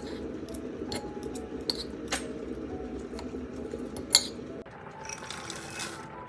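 Kitchen clatter: dishes, glass and cutlery clinking in separate sharp knocks, the loudest a little after four seconds in. A steady rushing noise runs underneath and cuts off about two-thirds of the way through, with soft music in the background.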